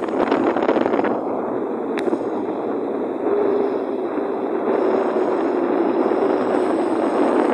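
Wind rushing over the microphone in a steady roar. From about three seconds in a faint hum slides slowly lower: the engines of an approaching Airbus A320neo. A single sharp click about two seconds in.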